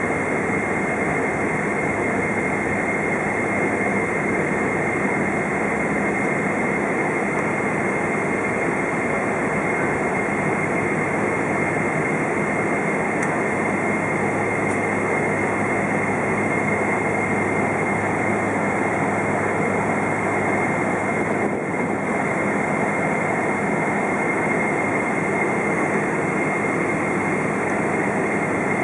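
Cabin noise of a Boeing 777-200's GE90 jet engines as the airliner rolls out after landing: a steady rushing drone with a thin high whine running through it.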